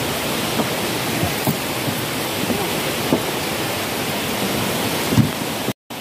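Steady rush of a waterfall and river, with a few faint knocks. The sound drops out for a moment near the end.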